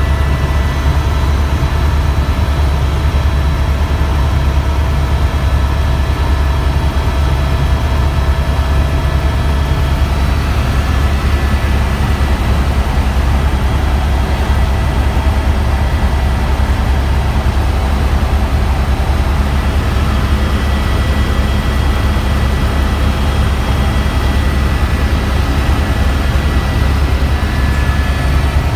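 Helicopter cabin noise in flight: a steady, loud low drone from the rotor and engine over a constant rushing hiss, with a few faint steady tones higher up.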